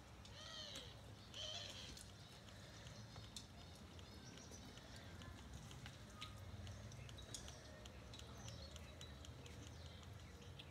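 Quiet eating sounds: spicy instant noodles being slurped and chewed, with scattered small clicks through the whole stretch.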